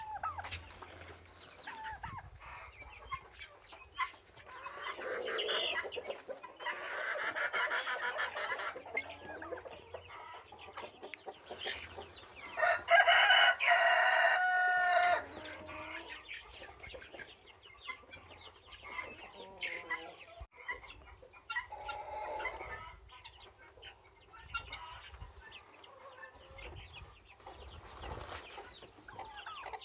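Farmyard poultry calling: chickens clucking on and off, with a rooster crowing loudly once, about halfway through.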